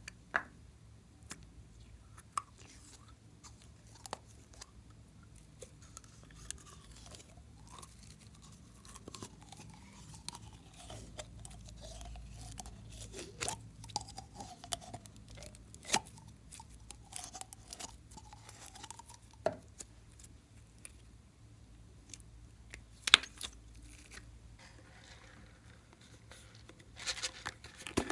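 Slime being kneaded and stretched by hand: scattered sticky clicks and crackles, with a few sharper pops, the loudest about 23 seconds in and another near the end.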